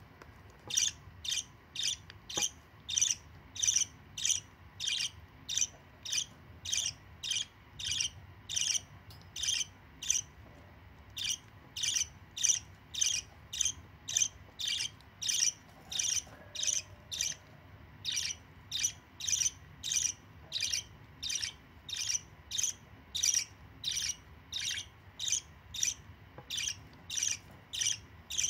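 Budgerigar begging calls during beak-to-beak regurgitation feeding: short, high chirps repeated steadily, about one and a half a second, as the young budgie begs and is fed.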